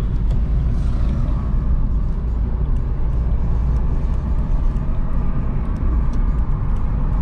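A taxi driving, heard from inside the cabin: a steady low rumble of engine and road noise.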